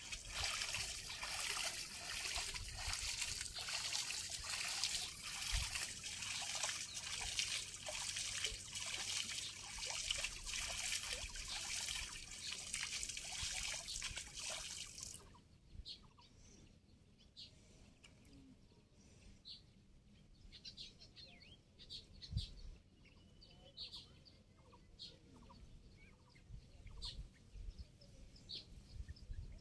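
Water trickling and splashing as a cast net is lifted and worked through shallow floodwater, with many small crackling splashes; it stops abruptly about halfway. After that, faint short bird chirps.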